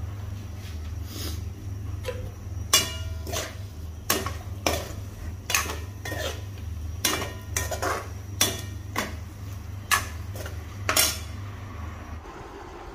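A spatula stirring sausages in a wok-style frying pan, knocking and scraping against the pan about a dozen times, some knocks ringing. A steady low hum runs underneath and stops near the end.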